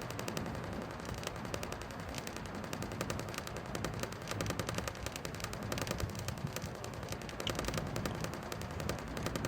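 1980-81 Galaxy 3714 box fan running, with a fast, steady clicking rattle over its motor hum: something inside is rubbing.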